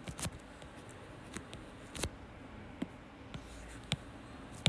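Stylus tapping and scraping on a tablet screen while writing by hand: a few light, scattered clicks.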